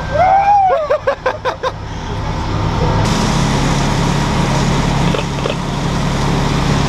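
Fire engine's engine running steadily, feeding its pump while a deck-gun water stream sprays, with the hiss of the water. A few short, high-pitched calls or whoops come in the first two seconds.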